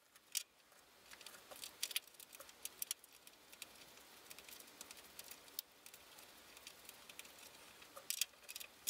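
Faint, scattered light metallic clicks and clinks of small hardware being handled: nuts being refitted on the front panel of a Heathkit SB200 amplifier, over a steady low hiss.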